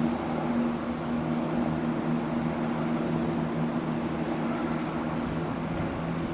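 ScotRail Class 170 Turbostar diesel multiple unit's diesel engines running with a steady drone, holding an even pitch throughout.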